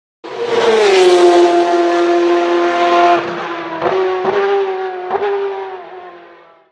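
High-revving racing engine sound effect, a steady high-pitched drone whose pitch settles slightly lower just after it starts. It has three short blips in its second half and fades out near the end.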